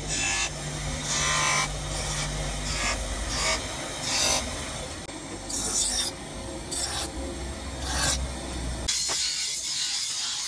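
A motor-driven wheel hums while a wooden knife handle, and then the steel blade, is pressed against it in repeated rasping strokes, about one a second. About nine seconds in this gives way to a steady high grinding hiss of steel on a grinding wheel.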